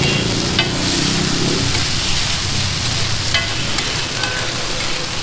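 Chicken and onions sizzling on a large flat iron griddle, stirred with metal tongs that click and scrape against the iron a few times.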